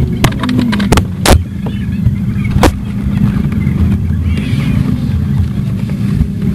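Steady low rumble of vehicle engines, with a few sharp knocks in the first three seconds.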